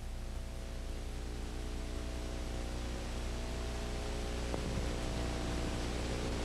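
Heavy loader's engine running at a steady speed under an even hiss.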